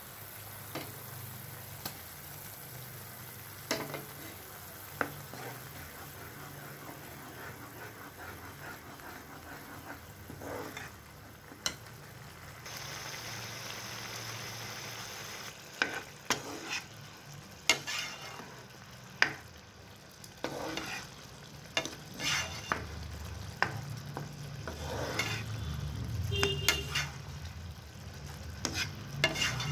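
Semolina upma bubbling in a nonstick pan as a plastic spatula stirs it, with frequent sharp clicks and scrapes of the spatula against the pan, while the mixture thickens. A low steady hum runs underneath.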